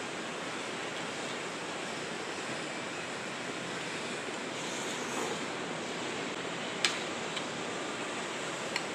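Sea surf breaking and washing steadily in a strong wind, with a few sharp clicks near the end.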